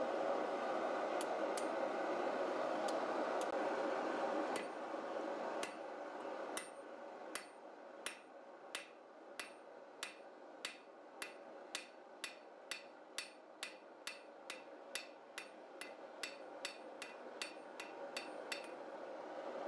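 A hand hammer strikes a red-hot steel bar on an anvil, forging a flat on the bar's end. The blows come evenly and speed up from about one and a half to over two a second. They follow a few seconds of steady rushing noise with a few light taps, and the rushing returns near the end.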